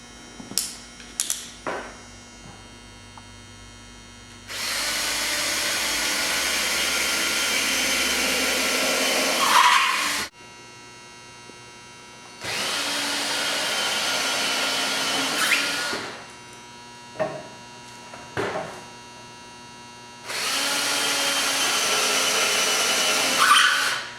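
Electric hand drill boring a pilot hole into a wooden wall stud, run in three bursts of several seconds each with a steady whine, with light clicks and knocks in the pauses.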